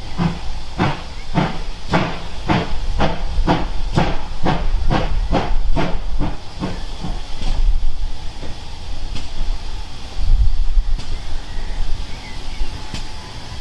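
Steam locomotive GWR 2857, a 2800 class 2-8-0, working slowly with exhaust beats about two a second that fade out after about seven seconds, leaving steam hissing. A short low rumble comes about ten seconds in.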